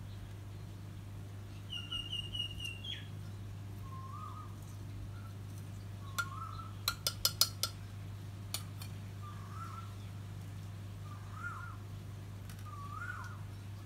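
A metal spoon clinking several times in quick succession against a clay mortar, the loudest sounds, around the middle. Around it a bird calls: a quick run of high notes about two seconds in, then short up-and-down calls every second or two, each a little higher than the last, over a steady low hum.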